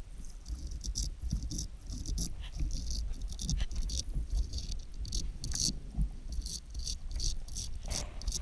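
A German shepherd's paws pawing and scraping at a rock and the gravel streambed, heard underwater: an irregular clatter of sharp clicks and knocks, a few a second, with low thuds of stirred water.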